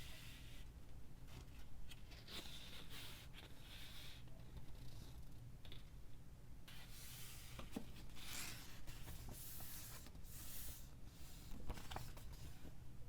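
Packaging being handled during an unboxing: several scraping, rustling strokes of about a second each, with a few sharp clicks and taps.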